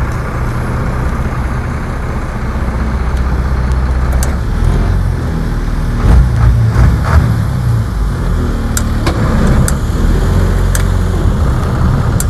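Speedboat engine running at idle, a steady low note with a few swells, as the boat creeps along at walking pace. A few light knocks sound now and then.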